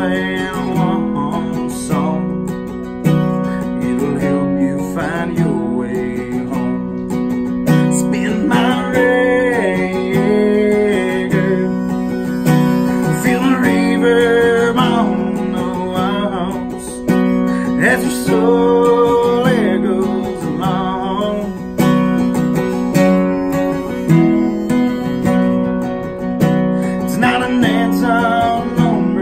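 Slow country ballad played on two strummed acoustic guitars, with a harmonica playing over them.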